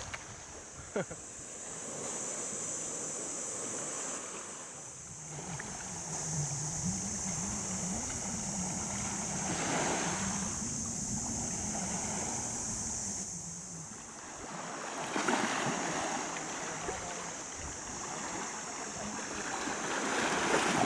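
Sea waves washing on a rocky beach, the rush swelling up three times: about ten seconds in, around fifteen seconds, and near the end. A steady high hiss runs underneath, and a low wavering hum comes and goes in the middle.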